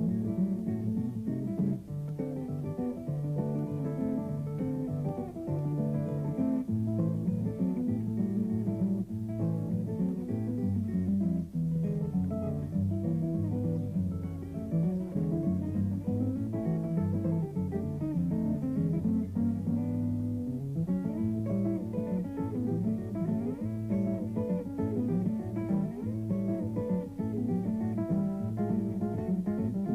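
Background music led by plucked acoustic guitar, with notes and strums changing steadily.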